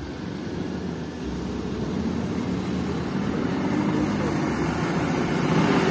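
Loaded dump truck's diesel engine pulling under throttle, growing steadily louder.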